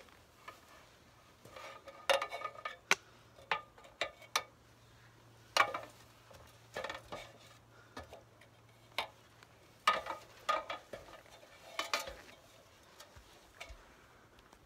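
Irregular metallic clanks of shoes and trekking poles striking the rungs of an aluminium ladder as a hiker climbs down it, a dozen or so knocks, several ringing briefly.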